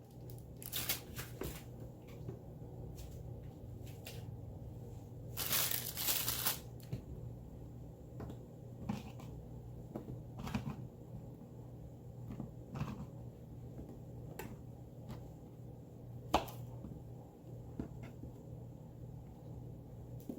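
Kitchen food-prep handling: plastic packaging rustling and crinkling, with scattered light clicks and knocks, and one longer rustle about five and a half seconds in.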